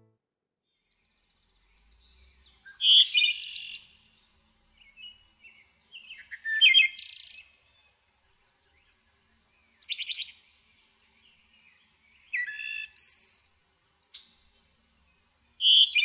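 Wood thrush singing: five separate song phrases about three seconds apart, each a short run of lower notes ending in a higher trill.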